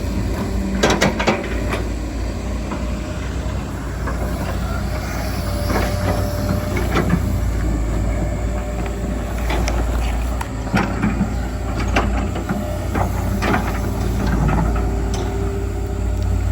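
Hydraulic excavator's diesel engine running steadily, with scattered metallic clanks and knocks from the digging work.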